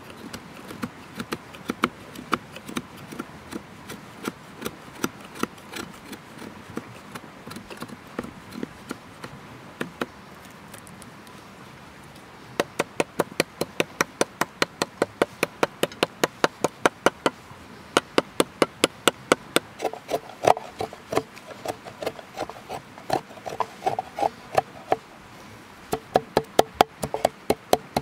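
Sharp repeated knocks, a hard object struck against wood. They come scattered at first, then settle about halfway into a steady rhythm of about two or three a second, the later ones ringing with a short note.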